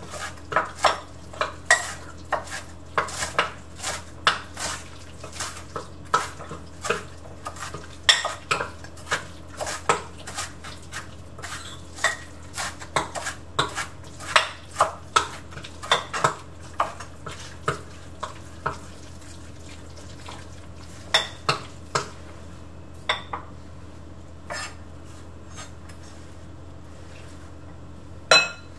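Kitchen knife chopping napa cabbage on a cutting board: sharp, irregular chops about two or three a second, growing sparse and stopping a few seconds before the end. A faint steady low hum sits underneath.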